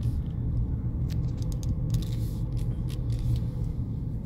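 Car driving slowly, heard from inside the cabin: a steady low rumble of engine and tyres, with a few light clicks scattered through it.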